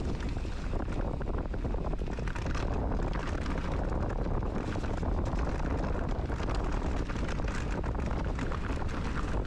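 Wind rushing over the microphone of a mountain biker's camera while riding downhill, with the steady rumble of tyres on the trail and small rattles and clicks from the bike.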